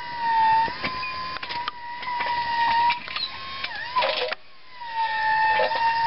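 Electric motor of a battery-powered backhoe whining steadily while it digs, the pitch wavering and sagging briefly under load. The whine stops for about half a second a little past four seconds in, then starts again, with scattered clicks and knocks throughout.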